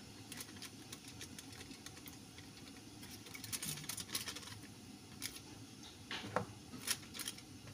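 Aluminium foil crinkling and rustling as a spoon scoops bean batter into a foil pouch, with irregular clicks of the spoon against the foil and the bowl, in clusters about halfway through and again near the end.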